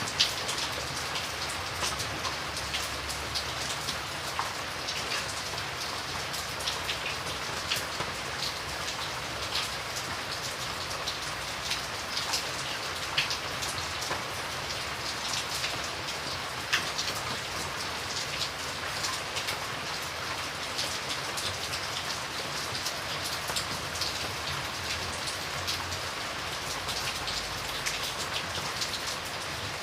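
Steady rain, with individual drops heard as many small sharp taps over an even hiss; a few drops land louder than the rest.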